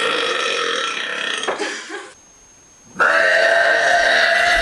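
Two long, drawn-out burps from a girl. The first trails off about a second and a half in; after a short break the second starts about three seconds in and holds steady.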